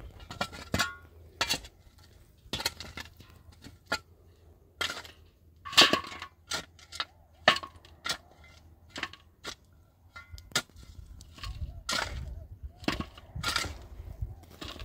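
Scattered sharp knocks and clinks of hard objects being handled, irregular at about one or two a second, with a louder clatter about six seconds in.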